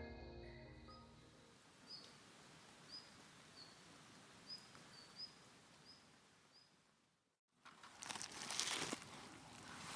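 Soft music fades out, then a small bird chirps repeatedly, a short high note about once a second, over quiet open air. After an abrupt cut, near the end, a louder crinkling, crackling rustle begins.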